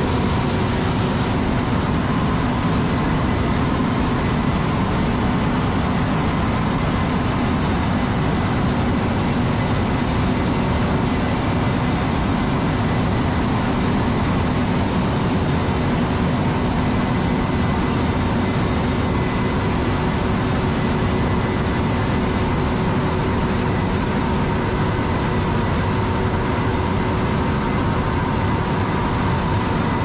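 Large farm harvest machinery running steadily, a continuous engine hum with a few held tones. A brighter hiss drops away about a second and a half in.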